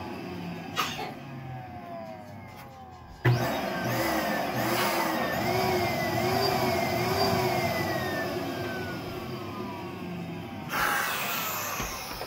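Electric balloon inflator's blower motor, worked by a foot pedal, running to inflate a balloon: it winds down with a falling pitch, kicks on again suddenly about three seconds in, then runs steadily with a wavering pitch.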